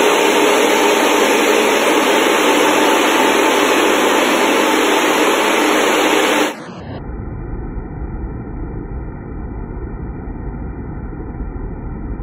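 Water spraying and churning inside a deaerator tank. A loud, steady hiss cuts off suddenly about six and a half seconds in, giving way to a quieter, muffled low rumble.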